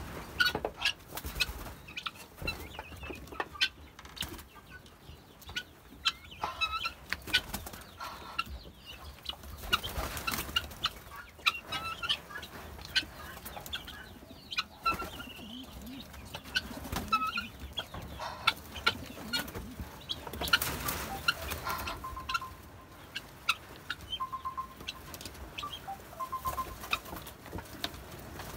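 A flock of helmeted guineafowl calling in a pen: many short, sharp calls overlapping throughout. In the last third a short, level note repeats three times, about two seconds apart.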